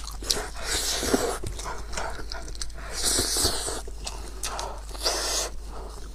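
Close-miked eating sounds: wet chewing, smacking and slurping, with noisy breaths and sniffs. Gloved hands pull apart soft, saucy sheep's-head meat.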